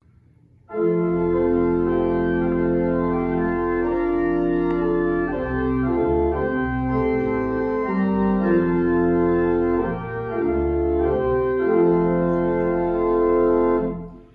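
Organ playing slow, sustained chords that change every second or two. It starts after a brief silence and stops just before the end.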